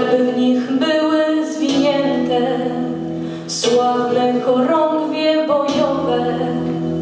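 A woman singing into a microphone in sung phrases, over accompaniment with a steady held low note.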